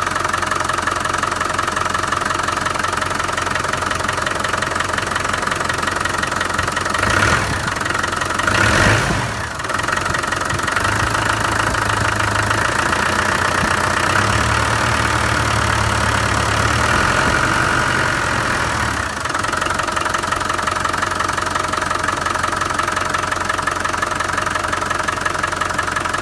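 Land Rover 300Tdi 2.5-litre four-cylinder turbodiesel running with a knock whose cause the owner does not know. The sound shifts between about seven and nineteen seconds in, loudest around nine seconds, with a deeper rumble added for a while before settling back.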